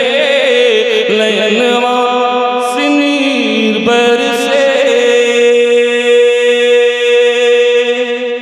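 A man singing a naat into a microphone, his voice bending through a melodic phrase and then holding one long note that ends near the end.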